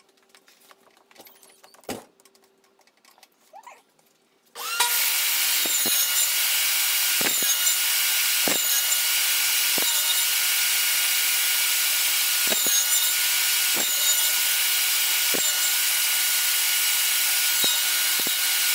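Table saw switching on about four and a half seconds in and running steadily while dados are cut across a row of clamped pine legs on a crosscut sled, with a sharp knock about every second and a half. Before it starts there are only a few faint clicks of handling.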